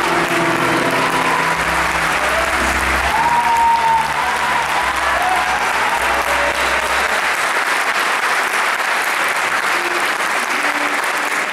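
Theatre audience applauding, with the band's last held notes sounding under the clapping and fading out about seven seconds in.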